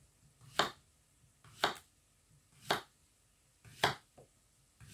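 Kitchen knife slicing through a courgette and striking the wooden chopping board, a crisp knock about once a second, four cuts with a fifth at the very end.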